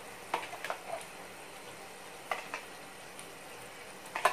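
A spoon clinking a few times against a steel bowl and pan as spice paste is scooped into the pan, in short pairs of taps. Under it, a faint steady sizzle of the simmering yogurt masala.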